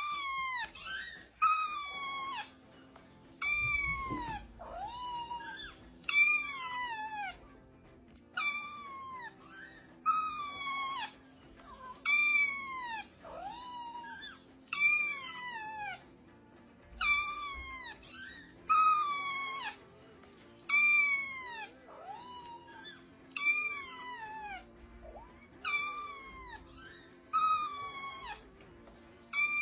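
A cat meowing over and over, about one call a second, each meow high and falling in pitch.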